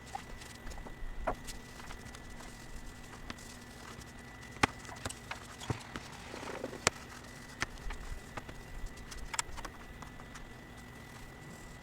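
Irregular light knocks and clicks of wood and finishing gear being handled, a few sharper taps among them, over a faint steady hum.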